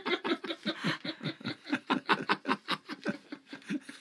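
A man laughing hard in a long run of short "ha" breaths, about five a second, tailing off near the end.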